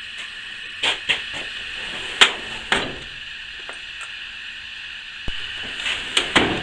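A handful of sharp clicks and knocks, scattered and irregular, over a steady high hiss.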